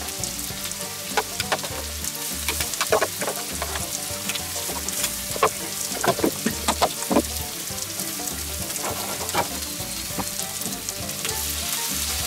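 Turkey steaks and vegetables sizzling over a hot charcoal grill, a steady hiss broken by irregular sharp pops and crackles, busiest in the first seven seconds or so. The sizzle grows a little louder near the end.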